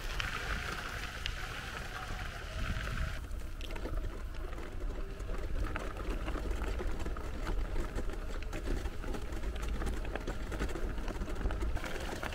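A power wheelchair rolling over a dirt and gravel track: a steady low rumble with many small crunches and clicks from the tyres. A higher hiss in the first three seconds stops about three seconds in.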